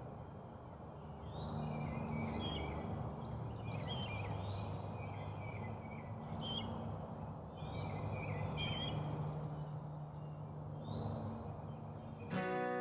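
Wild birds chirping and calling in short repeated phrases over a low steady hum. Acoustic guitar music comes in just before the end.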